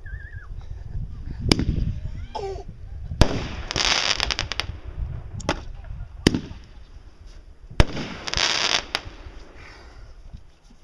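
Aerial fireworks going off: a string of sharp bangs a second or more apart, with two longer hissing bursts lasting about a second each, around three and a half and eight seconds in.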